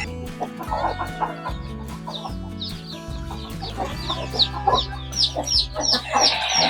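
Chicks peeping in short, high, falling chirps, coming faster and louder from about four seconds in, with chickens clucking lower among them. Soft background music runs underneath.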